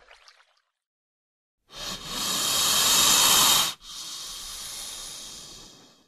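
Spectacled cobra hissing twice: a loud hiss of about two seconds, then a softer one about as long.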